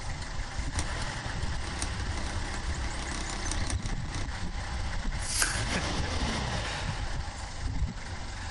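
Safari vehicle's engine idling with a steady low rumble, and a brief hiss about five seconds in.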